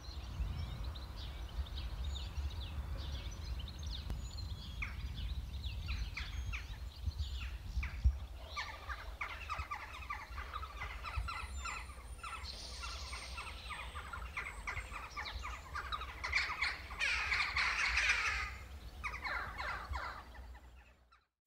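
A flock of birds calling, many short chirping calls that grow busier about halfway through and are thickest near the end, over a low rumble. One thump about eight seconds in.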